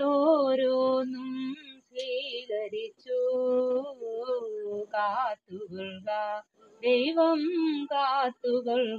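A voice singing a Malayalam devotional song in phrases, with long held notes that waver in pitch.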